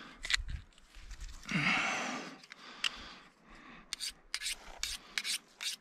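A hunting knife blade being sharpened by hand, steel rasping against a small sharpener: a few separate strokes, then quick repeated strokes from about four seconds in, roughly three a second.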